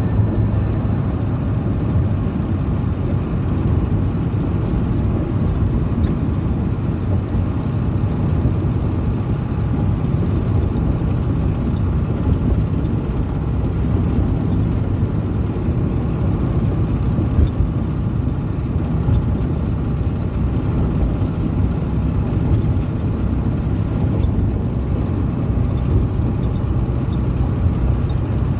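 Ford Cargo 712 diesel light truck on the move, heard from inside the cab: a steady low engine drone with road and wind noise, and one brief knock about two-thirds of the way through.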